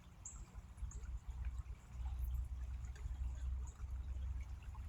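Wind rumbling on the microphone, strongest from about two seconds in, over faint trickling water of a small creek, with short high chirps now and then.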